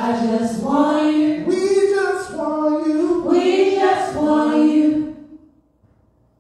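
A small group of men and women singing a gospel phrase together without instruments, for about five seconds before pausing.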